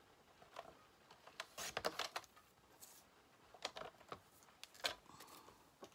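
Paper being cut to size on a paper trimmer: quiet rustling of the sheet and clicks and slides of the trimmer, in a few short runs, the longest about two seconds in.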